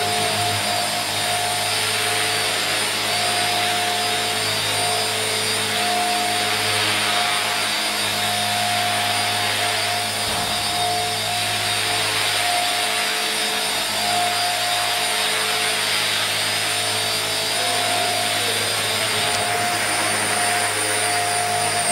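Radio-controlled model helicopter in flight: a steady whine of its motor and spinning rotor blades, holding a fairly even pitch with small swells in level as it manoeuvres.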